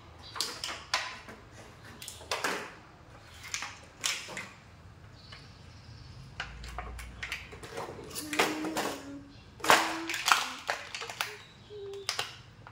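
Clear plastic sheeting crinkling and rustling in short, irregular crackles as a toddler handles and crawls over it on a tiled floor. A few brief voice sounds from the child come about two-thirds of the way through.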